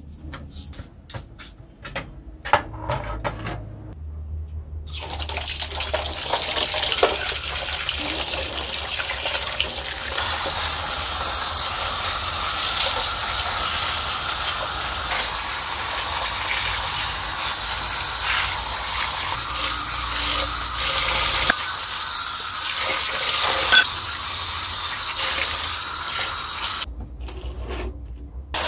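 A few short scrubbing strokes of a toothbrush on a metal saw housing. About five seconds in, a steady jet of water from a spray wand starts, splashing onto the taken-apart metal reciprocating-saw parts in a plastic tub, and it stops shortly before the end.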